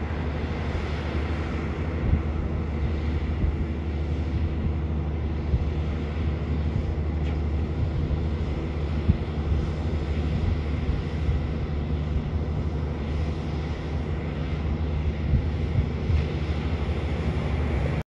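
Diesel engine of a truck-and-dog tipper running steadily while it drives the hydraulic hoist raising the tipper body, with a few light knocks. The sound cuts off abruptly near the end.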